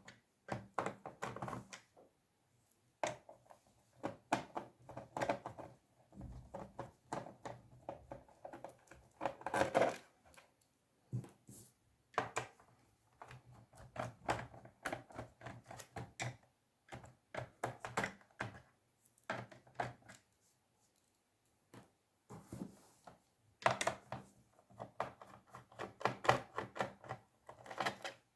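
Screws being undone on the plastic underside of an HP 15 laptop: a screwdriver makes irregular small clicks, ticks and taps against the case, in clusters with short pauses.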